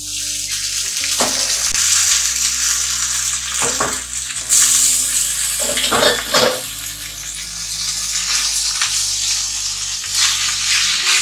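Boiled instant noodles hitting hot oil with fried onions and green chillies in a steel kadai, starting at once into a loud, steady sizzle. A few scrapes and knocks of a metal spatula are heard as the noodles are stirred.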